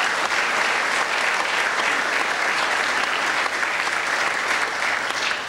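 Audience applauding: a dense, steady clatter of many hands clapping that begins to die away near the end.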